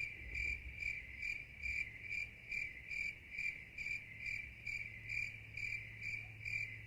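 A cricket chirping steadily in an even rhythm, a little over two chirps a second, with a low hum coming in about five seconds in.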